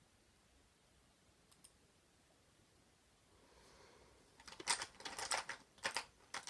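Near silence at first, then about four and a half seconds in a quick run of sharp clicks and rattles from small objects being handled.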